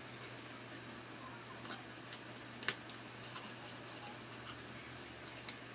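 Punched cardboard terrain pieces being handled and slotted together: faint scraping and rubbing of card with scattered small clicks, one sharper click a little past halfway.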